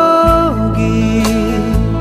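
Background music from a slow Hindi song: a held melody note drops lower about half a second in, over a steady low accompaniment.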